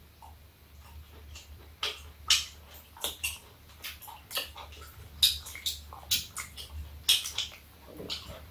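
People chewing and lip-smacking while eating octopus-shaped bread: an irregular run of short wet clicks and smacks, about two a second.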